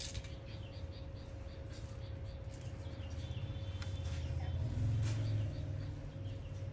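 Scattered small clicks from handling parts and connectors, over a steady low electrical hum that swells about four to five seconds in, with a run of short high chirps.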